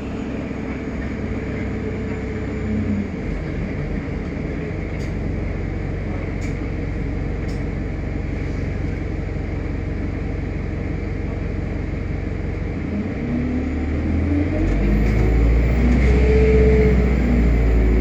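Bus diesel engine heard from inside the passenger saloon, droning steadily under way, then revving up hard under full throttle about thirteen seconds in, getting louder as its pitch climbs, and easing off near the end.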